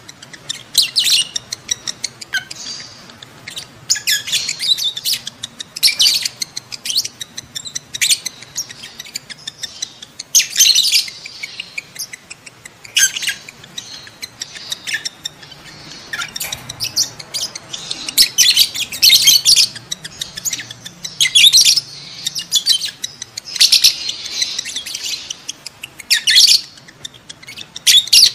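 Lovebirds chattering in shrill, rapid chirps and squeaks, coming in loud clusters every second or two with softer twittering in between. These are the calls of a mating pair in breeding condition.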